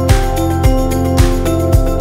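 Upbeat background music with a steady beat, a kick drum about twice a second under held notes.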